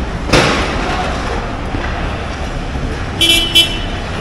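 Two short car-horn toots near the end, over a steady low rumble, with one sharp knock about a third of a second in.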